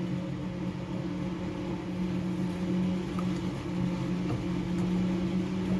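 A steady, low, even machine hum, like an electric appliance or fan running, with a few faint light clicks.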